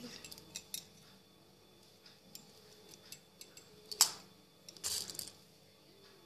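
Scattered light clicks and rattles of plastic beads and a threading needle against a steel bowl as beads are picked up onto the needle, with a sharper click about four seconds in and a short rattle just after.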